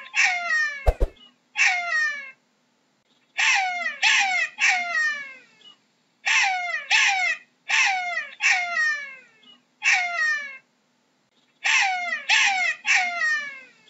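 Jackal yelping: short, high calls, each sliding down in pitch, coming in bouts of one to four with pauses of about a second between bouts. A single sharp click about a second in.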